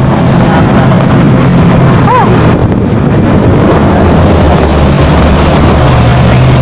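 Motorcycle engine running steadily while riding, heard from the seat behind the rider, with wind rushing over the microphone. A brief high chirp cuts through about two seconds in.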